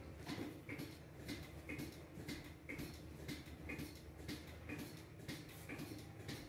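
Faint, regular ticking, about three ticks a second, each tick carrying a brief high tone, over a low steady hum.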